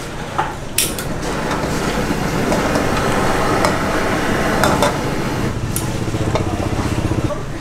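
Street-side wok-cooking noise: a steady rushing haze of gas burners and cooking with scattered clicks and clinks of a wooden spoon against the wok and plate. A low, rapid rattle comes in during the last couple of seconds.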